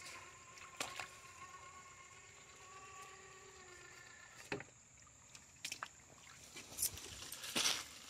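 Traxxas TRX-4 RC crawler's electric motor and gears whining steadily, stopping about halfway through. Then a few sharp knocks of the truck on rock, and a loud rush of splashing water near the end.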